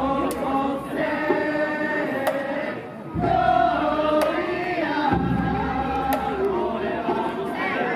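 Festival crowd chanting together in long, held calls.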